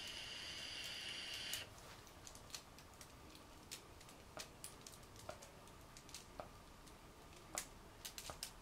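A faint, steady hiss with a thin whistle as air is drawn through a handheld vape pen on an inhale, cutting off about a second and a half in. After that, only quiet room tone with scattered faint clicks.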